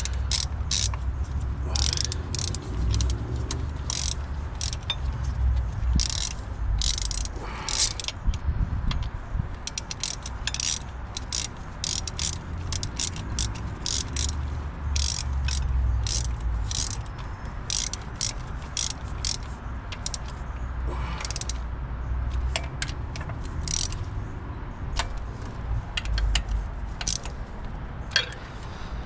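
Hand socket ratchet clicking in irregular runs as bolts are driven into an LT1 water pump, over a steady low rumble.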